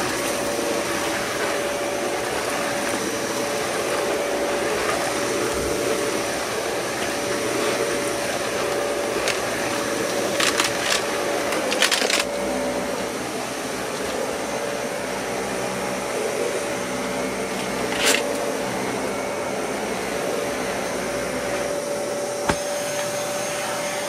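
Dyson Cinetic Big Ball upright vacuum cleaner running steadily, a whoosh of air with a constant whine, as its head is pushed over porch mats. A few sharp clicks and knocks stand out, mostly around the middle and once near the end.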